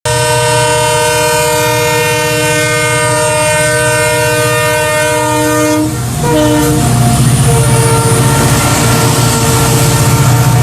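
Train horn sounding one long steady chord for about six seconds, then breaking off into a short blast and fainter held notes, over the continuous low hum of the train running.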